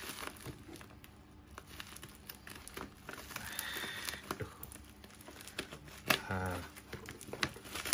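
Plastic packaging crinkling and rustling as a small wrapped package is handled and cut open with scissors, with scattered small clicks and snips.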